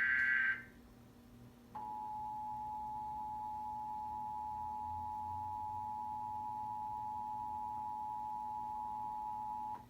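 The tail of an Emergency Alert System SAME data burst ends about half a second in. After a short pause the EAS two-tone attention signal (853 and 960 Hz together) comes on and holds steady for about eight seconds, then cuts off, opening a Required Monthly Test.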